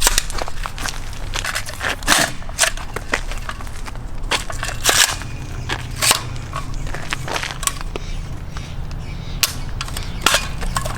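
An AR-15 rifle being fired and handled: about ten sharp cracks and clacks at irregular intervals over a steady low wind rumble. The rifle has been dragged through dirt and is fouled with debris.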